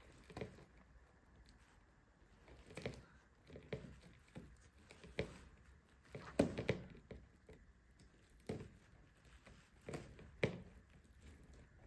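Faint handling noises of fingers working at the string and cardboard of a boxed cookware set: a handful of short rustles and taps, irregular and a second or two apart.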